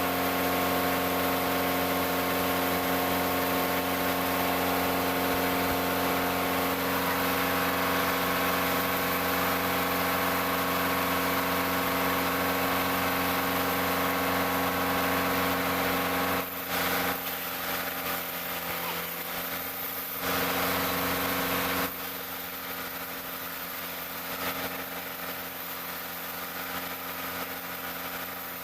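An engine running at a steady speed. The sound drops in level about two-thirds of the way through, is briefly louder again, then stays quieter.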